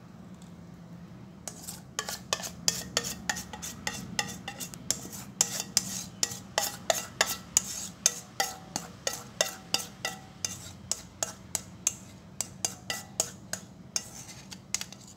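A spatula scraping and clicking against a metal mixing bowl as thick cake batter is scraped out into a loaf pan: quick scrapes and taps, about three or four a second, starting about a second and a half in.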